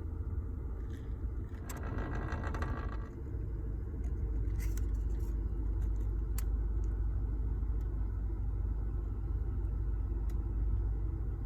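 Steady low rumble of a car heard from inside, with a few light clicks and rattles and a short pitched sound about two seconds in.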